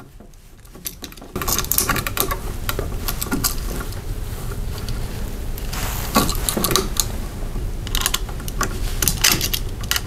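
Light clicks and metallic rattling from a single-pole light switch and stiff copper wires being handled, with looped wire ends being hooked onto the switch's terminal screws. A steady low background noise comes in about a second in.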